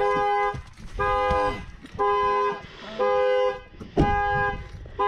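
Car horn sounding in regular blasts of about half a second, roughly once a second, the repeating pattern of a car alarm going off.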